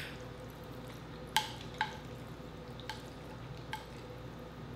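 Wooden chopsticks clicking and tapping as they pick through a plate of noodles: about five short, sharp clicks at uneven intervals, the loudest about a second and a half in, over a faint steady hum.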